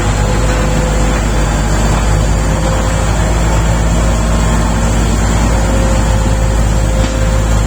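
Diesel engine of a Shantui SD32 crawler bulldozer running steadily, a low, even drone with no change in speed.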